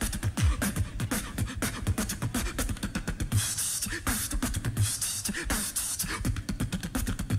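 Live loop-station beatboxing: layered looped vocal percussion with low kick-like thuds and sharp high clicks in a steady, repeating beat.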